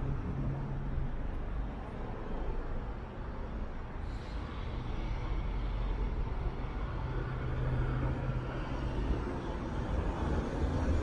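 City street traffic: road vehicles running and passing, with a steady low engine hum near the start and again from about seven seconds in.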